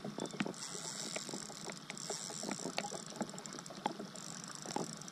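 Fishing reel working against a hooked jack crevalle: a high whir from the reel runs for about two seconds, stops, and comes back near the end, over scattered light clicks.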